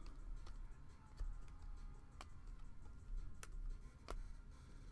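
Stiff chromium trading cards being flipped and slid against one another by hand, giving a few faint sharp ticks spaced about a second apart.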